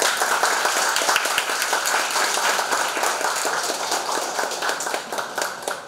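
Audience applauding: many hands clapping, starting suddenly and tapering off slightly toward the end.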